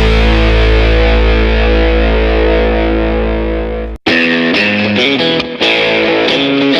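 Background rock music with distorted electric guitar: a held chord that fades, a sudden cut about four seconds in, then fast picked guitar notes.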